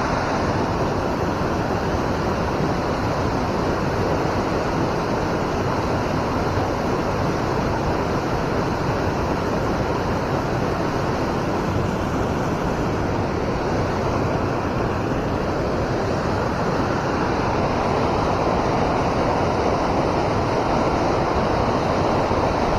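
River water rushing and churning steadily, a loud even wash of noise.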